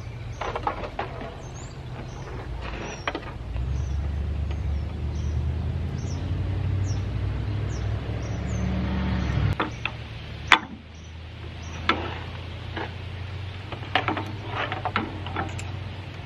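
Hands and a wrench working the nut on a metal shaft at the hub of an X-ray machine's rotating disc. A low rumble of handling stops suddenly a little past the middle, and then comes a series of sharp metallic clicks and clinks, the loudest just after the rumble stops.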